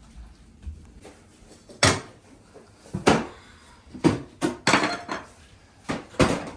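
A series of sharp knocks and clacks in a small room, about seven in all, irregularly spaced and several in quick succession near the middle.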